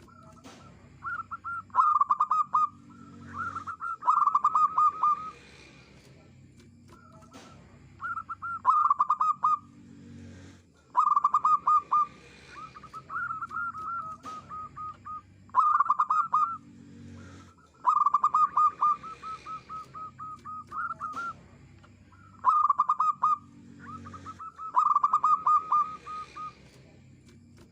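Zebra dove singing: a stream of rapid, staccato cooing phrases, each a quick run of pulsed notes, repeated every second or two.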